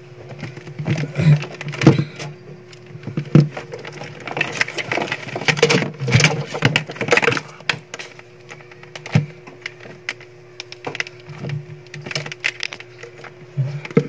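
Handling noise from setting up a multimeter and its test leads against the refrigerator's evaporator: scattered plastic clicks, knocks and rustling, busiest in the middle, over a faint steady hum.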